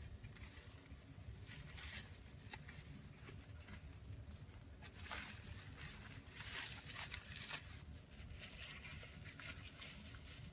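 Paper towel crumpling and rustling in several short bursts as it is wiped around the hot metal insert of a melting pot, over a faint low hum.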